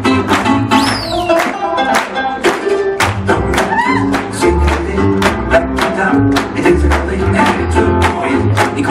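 Swing jazz music with a steady beat, about two beats a second.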